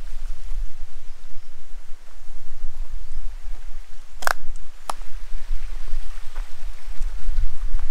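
Wind buffeting the microphone: a fluttering low rumble over a faint hiss. Two sharp clicks about half a second apart a little past the middle.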